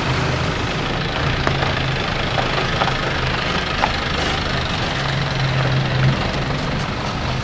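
Pickup truck engine running at low speed as the truck, loaded with sacks of rice, drives slowly by, a little louder about six seconds in.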